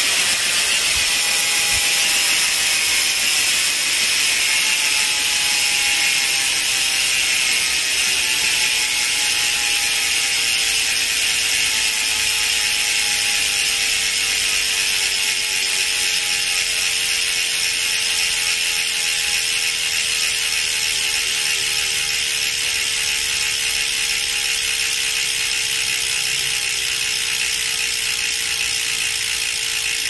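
Novatec D042SB rear hub's three-pawl freehub ratcheting as the rear wheel coasts after a spin. The clicks run together into a steady buzz that slowly drops in pitch as the wheel slows. The hub has about 400 km of use.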